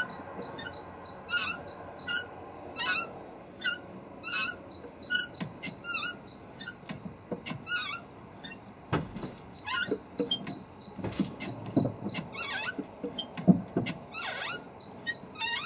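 Daihatsu Mira Van clutch squeaking over and over, a short wavering high squeak about once a second, with a few low knocks in the second half. The owner traces the noise to inside the transmission, not to the clutch pedal or cable.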